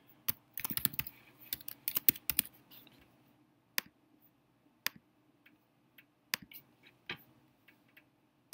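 Typing on a computer keyboard, a quick run of keystrokes, then several separate clicks about a second apart as a mouse clicks through menus.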